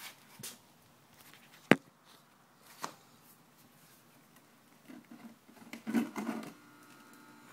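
Handling noises as the scooter's propped-up rear wheel is reset: scattered clicks and knocks, one sharp click a little under two seconds in and a cluster of duller knocks near the end. A faint steady hum follows the knocks.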